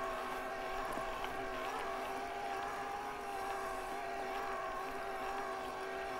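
Yamaha PW-SE mid-drive e-bike motor whining at a steady pitch under heavy load, pulling the bike slowly up a steep climb at 280% assist.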